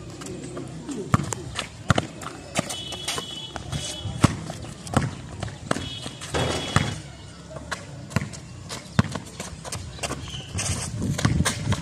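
A basketball bouncing on a concrete outdoor court: sharp, irregularly spaced thuds as it is dribbled, with a few short high squeaks among them.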